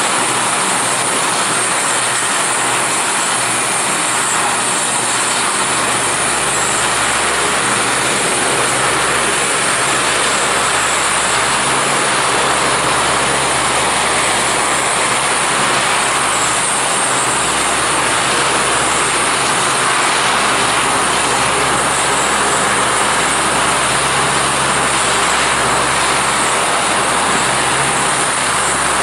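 Lockheed C-130 Hercules' four Allison T56 turboprop engines running at low taxiing power: a steady propeller drone with a constant high turbine whine.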